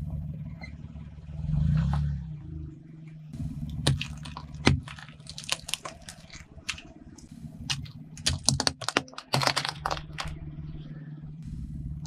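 A car tyre rolling over and crushing plastic toys and wrapped hard lollipops: sharp cracks and crunching snaps of breaking plastic and candy, single cracks about four seconds in and a quick run of them around eight to ten seconds, over a low steady engine hum.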